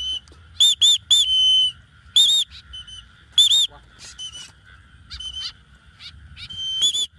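Loud, sharp whistled call notes, in quick pairs and a triplet with one longer held note about a second and a half in, used to call back a free-flying white-breasted woodswallow.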